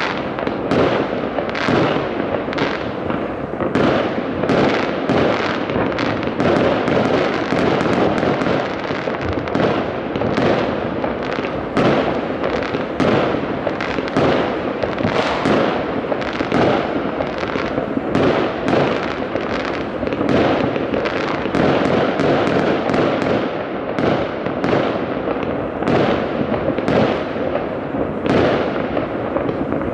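New Year fireworks and firecrackers going off from many places across a city at once: a dense, unbroken run of overlapping bangs and crackles.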